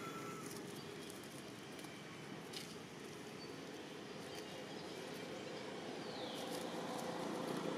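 Outdoor background noise with a few faint clicks and one short, high chirp that falls in pitch about six seconds in.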